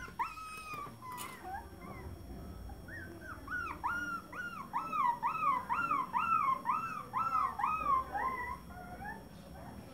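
Rottweiler puppy whining in a fast, regular run of short high cries that rise and fall, about three a second, starting about three seconds in and stopping near the end, after a few scattered cries at the start.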